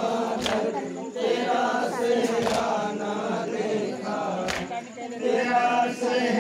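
A group of men chanting a noha (mourning lament) in chorus, with a sharp strike about every two seconds, three in all, in time with the chant.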